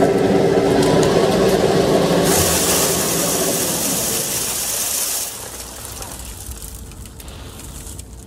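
Loose bulk goat feed pouring from the mill's cloth spout sleeve into a plastic barrel, a rushing hiss from about two seconds in that stops abruptly about five seconds in. Under it a steady motor hum fades away.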